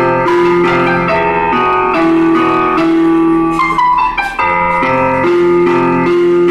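Music: a keyboard playing slow, held chords that change about once a second, with a short break in the melody about four seconds in.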